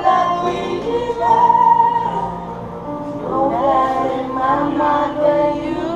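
A woman singing a song over backing music, holding long notes.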